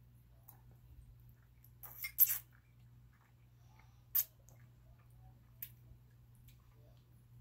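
Instant noodles being slurped and eaten close to the microphone: a few short, sharp slurps and mouth sounds, the loudest cluster about two seconds in and another just after four seconds, over a low steady hum.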